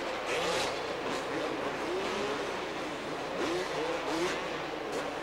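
Two-stroke supercross motorcycles racing, their engines revving in short rising climbs as the riders get on the throttle, over a steady wash of background noise.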